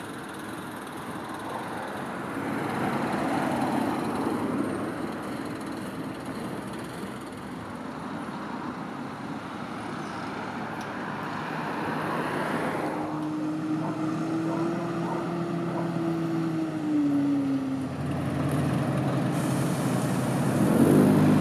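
Street traffic: motor vehicles driving past on an asphalt road. An engine hum holds a steady pitch midway and then drops slightly, and a louder vehicle passes near the end.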